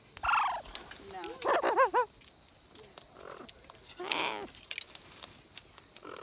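Steady high-pitched insect chorus, with three short wavering calls over it, the first falling in pitch.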